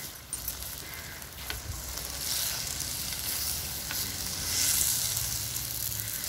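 Chicken and chopped vegetables sizzling in oil in a clay kadai while a spatula stirs and turns them, with a few light scrapes. The sizzle swells twice as the food is turned over.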